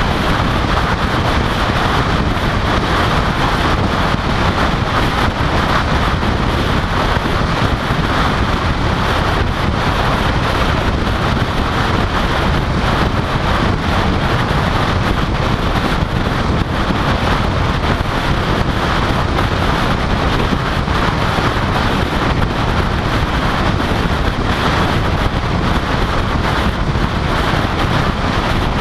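Steady roar of wind rushing over an action camera's microphone mounted on the outside of a car at freeway speed, mixed with tyre and road noise. It stays even throughout, with no changes.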